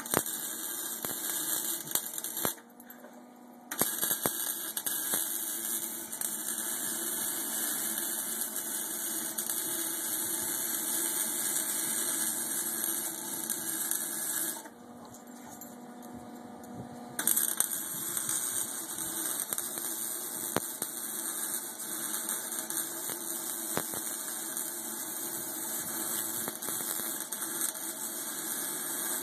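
Lincoln wire-feed welder's arc crackling and hissing steadily as it welds, with two short breaks, about three seconds in and near the middle.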